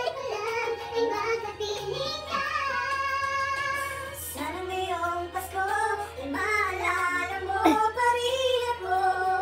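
Karaoke singing: a voice sung through a microphone over a music backing track, with some long held notes.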